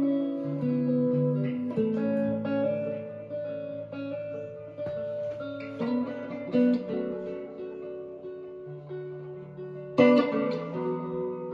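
Danocaster Telecaster-style electric guitar with a Ron Ellis JL pickup set, played slowly: picked single notes and chords that ring into one another, with a louder strummed chord about ten seconds in.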